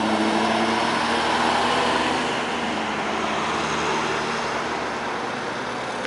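Road traffic: vehicle engines and road noise, with a low engine drone that fades away over the first couple of seconds as vehicles drive off, then a steadier, slightly quieter traffic hum.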